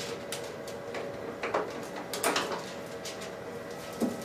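Zebra ZXP Series 8 card printer being handled as its cover is opened and the transfer film cartridge is taken out: a few plastic clicks, two short sliding scrapes and a knock near the end, over a steady faint hum.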